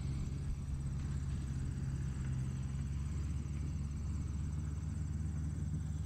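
Outdoor woodland ambience: insects chirring steadily with a fast, even high-pitched pulse over a low, steady rumble.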